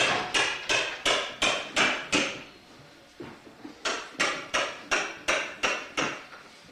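Hammer blows in a quick, steady rhythm, about three a second, each with a short ringing tone; two runs of strikes with a pause of about a second and a half in the middle.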